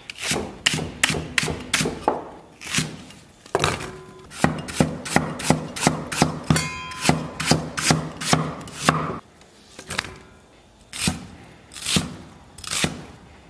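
Chinese cleaver chopping scallion, ginger and red onion on a thick wooden chopping block: sharp knocks of the blade on the wood. They come irregularly at first, then steadily at about three a second, and after a short pause a few single chops near the end.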